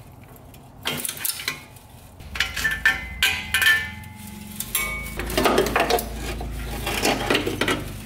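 Steel exhaust header being wiggled and worked down out from under a car: irregular metal clanks, clinks and scrapes as the pipes knock against the chassis and tools, with the busiest clatter in the middle and near the end.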